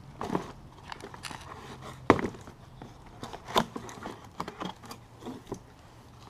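Cardboard shipping box being pulled open by hand, its flaps tearing and rustling in irregular crackles, with a sharp snap about two seconds in.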